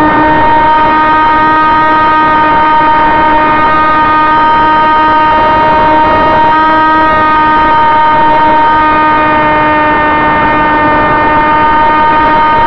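Electric motor and propeller of a Sonicmodell AR Wing flying wing, heard from its onboard camera: a loud, steady whine at constant throttle over a rush of air.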